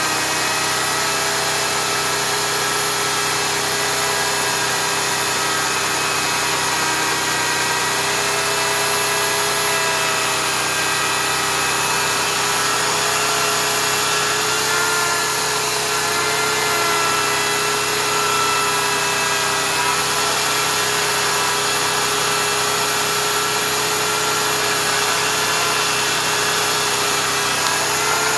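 Oregon CS1500 15-amp electric chainsaw running and cutting through a tree trunk, its motor whine steady with slight dips in pitch under load. A generator engine runs behind it.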